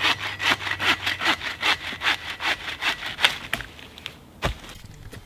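Hand saw cutting through a wooden pole in quick, even back-and-forth strokes. The strokes slow and stop about three and a half seconds in, followed by a single sharp knock about a second later.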